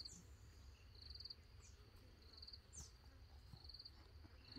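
Faint cricket chirping: short, high, finely pulsed trills repeating about once a second from about halfway through, over a faint low rumble.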